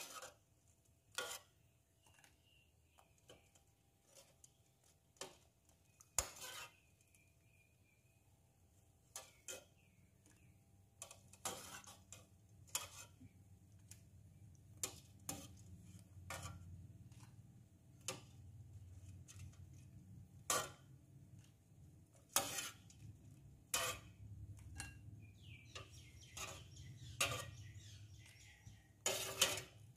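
Metal ladle clinking and knocking against a stainless steel pot and a ceramic bowl in scattered single strikes as cooked prawns are ladled out of broth. A low rumble rises underneath from about a third of the way in.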